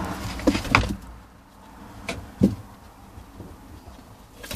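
A few dull knocks and bumps, the loudest about two and a half seconds in, over a low rumble that fades after the first second.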